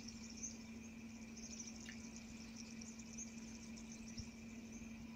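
Faint insects chirring in the bush, a high fluttering trill, over a low steady hum.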